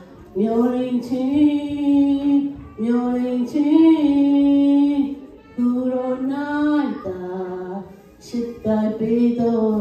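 A woman singing solo into a microphone, with no accompaniment heard: long held notes in phrases broken by short pauses for breath.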